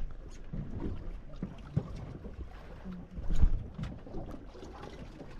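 Wind buffeting the microphone over the low rumble and lapping of water against a fishing boat, with a few dull knocks on the boat, the loudest about three and a half seconds in.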